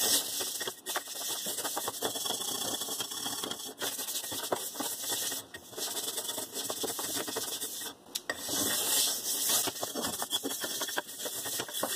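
Plastic-bristle scrub brush scrubbing the inside of a stainless steel pan in a wet Bar Keepers Friend paste, a continuous scratchy scrubbing with a few brief pauses between strokes, working off stuck-on cooking residue.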